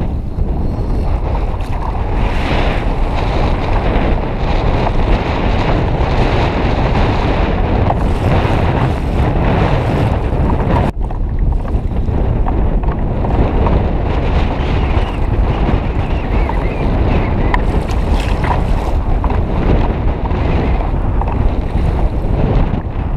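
Heavy wind buffeting the microphone over choppy sea water, a loud, steady rushing noise with no break.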